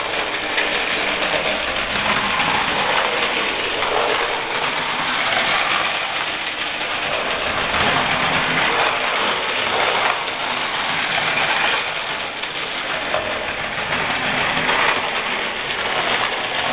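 Vintage Hornby O scale clockwork locomotive and train running after the brake lever is released. The wound-spring motor and the tinplate wheels and track make a steady mechanical whirring rattle.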